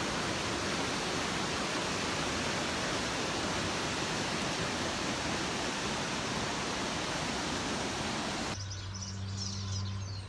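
Steady rushing of falling water, an even roar with no breaks. About eight and a half seconds in it cuts off abruptly to a quieter scene with a low steady hum and faint high chirps.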